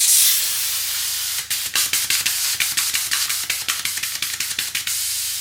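Air hissing steadily through a mountain bike tyre valve, with a run of quick ticks over the hiss through the middle.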